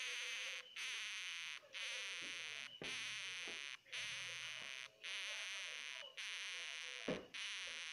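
Baby hamster crying: a high-pitched buzzing screech repeated about once a second, each call just under a second long with short breaks between. There is a brief low bump near the end.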